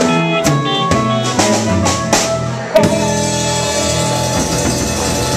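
Live band playing amplified music: electric guitar, bass and drum kit. About three seconds in, a loud accent lands and the band holds a ringing chord under a wash of cymbals.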